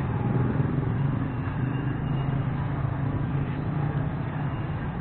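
Steady low rumble of street traffic with a vehicle engine running, an even hum under a noisy haze.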